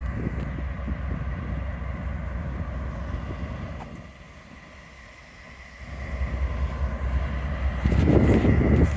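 Diesel-electric freight locomotives running with a low engine rumble. The rumble fades in the middle and grows loudest near the end as the locomotives come closer. A thin steady high tone runs underneath.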